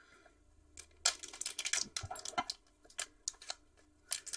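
Crinkling and crackling of a foil trading-card pack wrapper being picked up and handled, then a few sharp clicks near the end as it is cut open with scissors.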